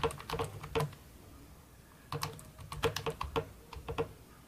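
Keys being typed on an Inote Bluetooth 3.0 keyboard: a quick run of keystroke clicks, a pause of about a second, then a longer run of clicks.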